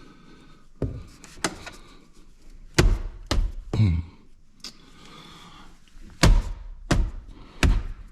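Plastic dash trim panel being knocked and pressed against its retaining clips, with about eight dull thunks, several heavy ones around three seconds in and again near the end.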